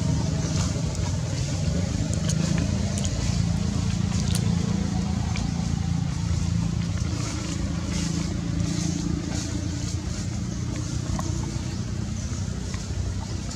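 A low engine hum running steadily, its pitch lifting slightly about halfway through, with faint scattered clicks.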